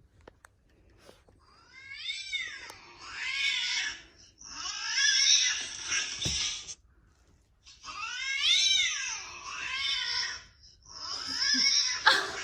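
A recorded cat cry played twice: each time a rising-and-falling meow, then a longer, harsh, noisy yowl.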